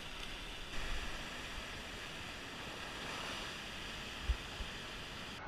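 Surf washing over and around rocks, a steady rush of foaming whitewater, with two short low bumps about four seconds in.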